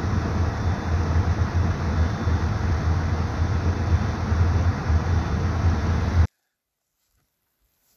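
Steady loud outdoor rumble and hiss that cuts off suddenly about six seconds in.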